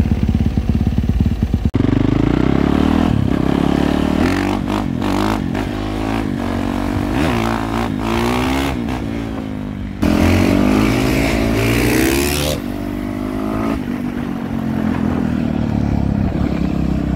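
Dirt bike engine ridden hard, its pitch climbing and dropping over and over as it revs up and shifts through the gears, in several spliced stretches. A hissing rush sits over the engine for a couple of seconds after about ten seconds in.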